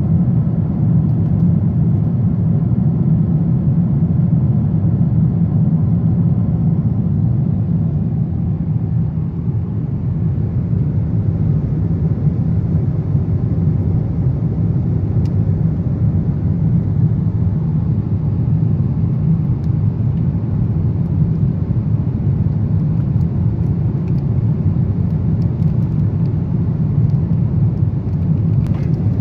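Steady cabin noise of a Boeing 777-300ER in cruise, a low, even roar of airflow and engines heard from an economy seat.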